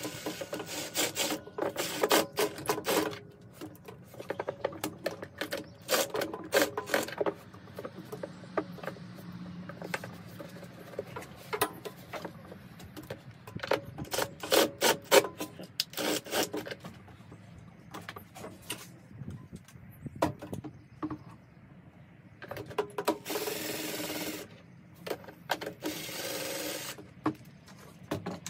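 Cordless drill/driver driving screws in several short bursts of rapid clicking, with two steadier runs of the tool's motor lasting a second or two near the end.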